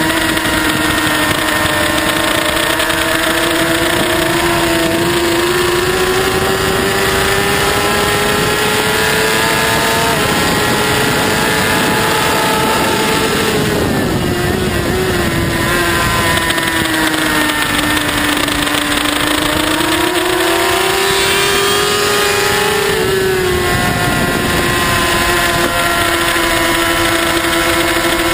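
Open-class superbike engine at racing speed, recorded on board, with wind rushing over the bike: the revs climb steadily, drop sharply at an upshift about ten seconds in, fall away with a run of quick downshifts around fourteen seconds, then climb again to another upshift near twenty-four seconds and hold high.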